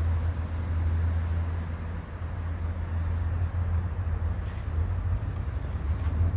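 Steady low rumble of distant road traffic, with a few faint scuffs in the second half.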